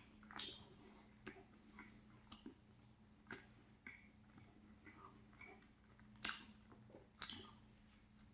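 Faint chewing of a flaky croissant pastry: scattered soft mouth clicks and smacks, with a louder one about six seconds in and another about a second later.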